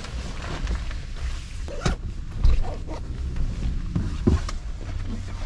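Rustling of a ski shell jacket being pulled on and adjusted, with a couple of sharp knocks, over a steady low rumble.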